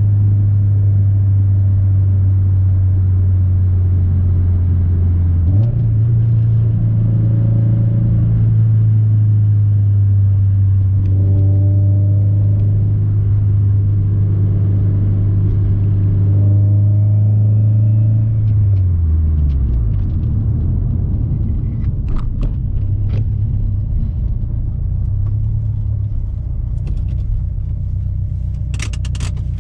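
Turbocharged Subaru STI engine and exhaust holding a steady low drone at constant speed. About two-thirds of the way through, the pitch slides down as the car slows to a rougher, lower idle-like rumble, with a few sharp clicks near the end.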